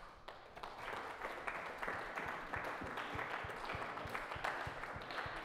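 Applause from a congregation: many hands clapping, steady and unbroken.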